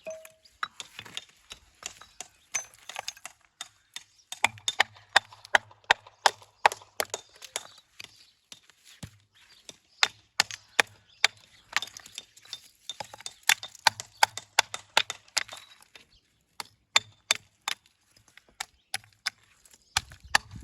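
Hammer striking stone again and again, shaping it for a dry stone wall: sharp knocks about three a second in runs of several seconds, with pauses between.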